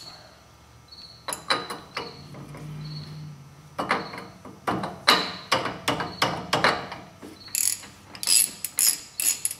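Hand ratchet clicking in repeated bursts as it works a slotted spindle-nut socket on a full-floating rear axle's spindle nut, after a few metal clinks as the socket goes onto the nut. The nut is far tighter than its hand-tight spec, over-tightened in the mechanic's view.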